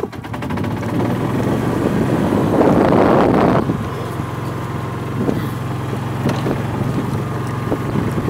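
Golf cart driving across the grass, its motor giving a steady low hum. A louder noisy rush comes for about a second around three seconds in.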